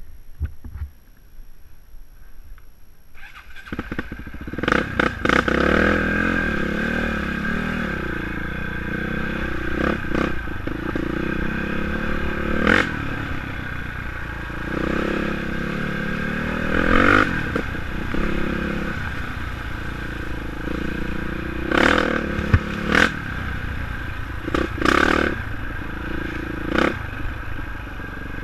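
Dirt bike engine, low for the first few seconds, then running loud from about four seconds in and revving up and down with the throttle while riding a rough dirt trail. Clattering knocks come from the bike going over bumps.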